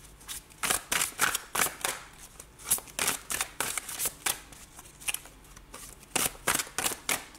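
A tarot deck being shuffled overhand from hand to hand, the cards slapping and riffling in quick strokes, about three a second, with a short break past the middle.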